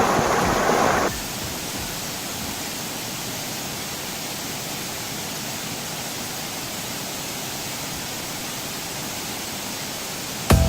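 Waterfall rushing: a steady, even hiss of falling water with no change in level. A louder sound before it cuts off abruptly about a second in.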